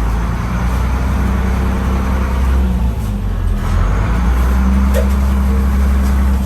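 Houseboat's engine running steadily while the boat is under way: a loud, constant low hum.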